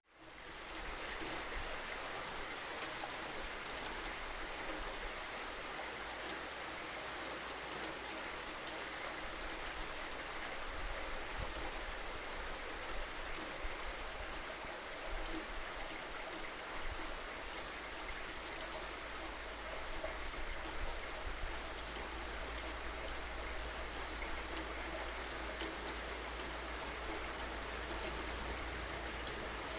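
Steady rain falling as an even hiss of water with a low rumble underneath, fading up from silence in the first second.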